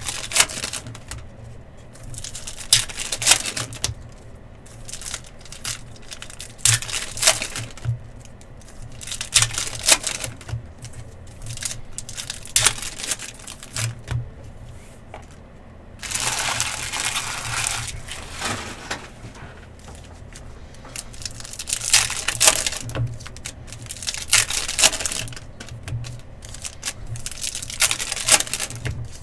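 Sports card packs being torn open and their foil wrappers crinkled, with sharp clicks and taps of cards and cardboard being handled. A longer stretch of tearing and crinkling comes about sixteen seconds in.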